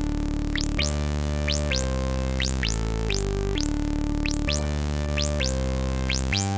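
Electronic background music: sustained synthesizer chords changing about once a second, each with a rising high swish.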